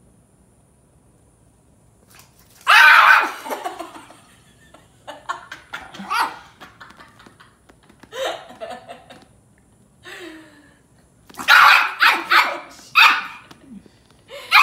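Chihuahua barking in several short bouts: a loud bark about three seconds in, a few smaller ones, then a quick run of barks near the end.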